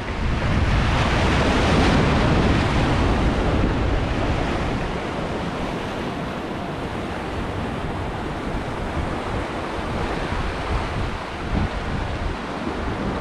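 Sea waves washing against a breakwall of concrete armour blocks, with wind rumbling on the microphone. The wash is loudest in the first few seconds, then settles to a steady rush.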